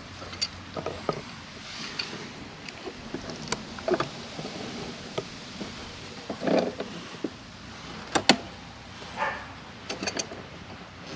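Pliers clicking and knocking against a plastic tee fitting and its plug on a sprinkler line: scattered sharp clicks and short knocks as the plug is gripped and tightened after the blowout, the loudest a sharp double click about eight seconds in.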